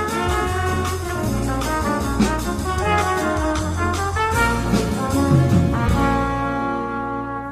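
Jazz-style music with brass horns and bass playing a moving line, then settling about six seconds in on one long held chord that begins to fade.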